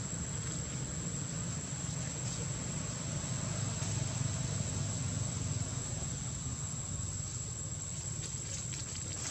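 Steady outdoor background noise: a continuous low rumble under a constant thin, high-pitched whine, with no distinct events.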